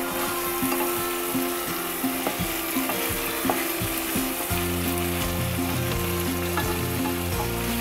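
Chicken pieces coated in tomato paste sizzling in a hot nonstick frying pan, stirred and turned with a wooden spatula that scrapes and taps against the pan.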